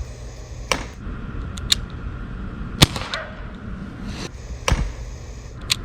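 Several sharp pops from a Glock 19X CO2 BB pistol being fired, irregularly spaced over a few seconds, the loudest about three seconds in.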